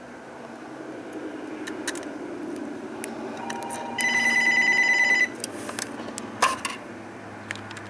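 Loud electronic trilling ring lasting just over a second, about four seconds in, over faint small clicks and a low hum.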